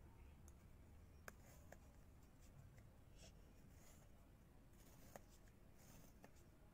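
Faint pencil strokes scratching on paper against near-silent room tone, with a few light ticks of the pencil tip, the loudest about a second in and about five seconds in.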